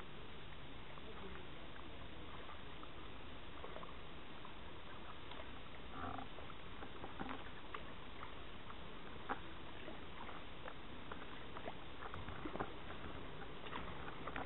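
Kayak paddling on calm dock water: irregular small splashes and drips from the paddle and water against the hull, over a steady background hiss.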